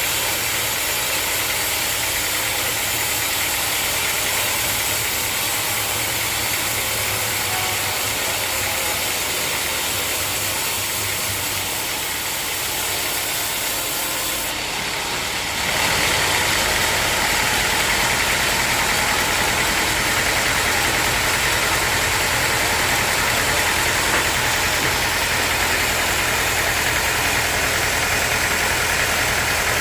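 Sawmill machinery engine running steadily. About halfway through the sound changes abruptly to a louder, heavier run with more low rumble.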